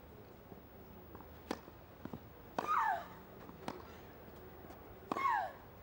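Tennis rally: sharp racket-on-ball strikes about every second and a quarter, the loudest two each with a player's short grunt falling in pitch.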